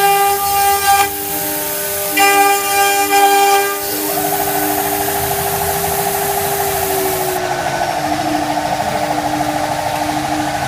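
CNC router spindle running with a steady whine while its cutter mills 4 mm flat fibreglass sheet. The cut sings in two pitched, ringing stretches of about a second each in the first four seconds, then turns to a fast, fluttering buzz.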